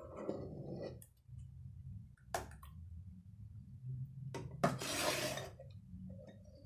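Kitchenware clatter: a spoon scraping and knocking against a saucepan and dessert cups while thick cream is spooned out, with a few sharp clinks and one longer scrape a little after the middle.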